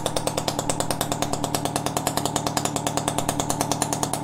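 Two-stroke bike engine idling steadily with an even pulsing beat. It is being left to run to burn the old, oil-rich 25:1 premix out of the engine and exhaust.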